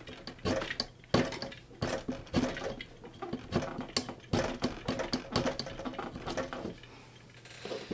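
Fingernail scratching and picking at a stubborn sticker on a Pioneer DJM-400 mixer's top plate: irregular scrapes and small clicks, dying away near the end.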